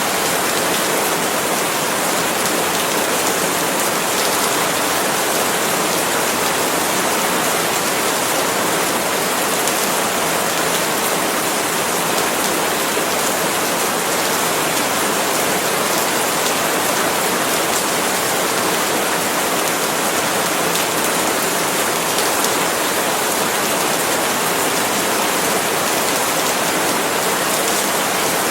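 Steady tropical rain falling on palm leaves, a constant even patter without pauses.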